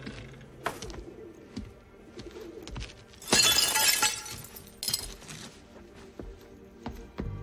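Window glass shattering in a loud crash a little over three seconds in, with a shorter spill of breaking glass about a second later. Birds call in the background over soft music.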